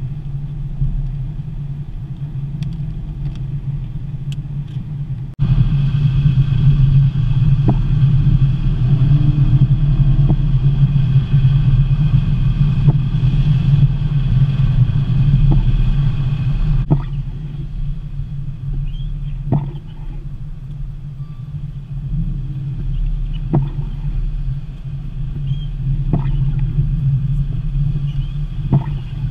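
Steady low rumble of a car driving, heard from inside the cabin: engine and road noise. It jumps louder about five seconds in and drops back somewhat near the middle.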